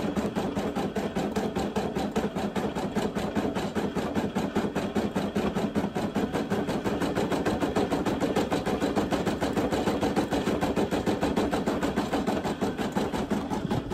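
Brother PE800 embroidery machine stitching a design: a steady, rapid clatter of needle strokes at an even pace.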